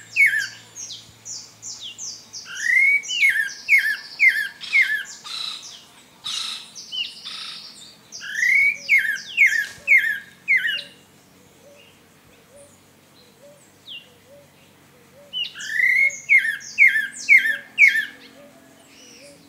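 Pale-breasted thrush singing: repeated phrases, each a rising whistled note followed by a quick run of four or five falling notes, with scratchier high notes between the phrases.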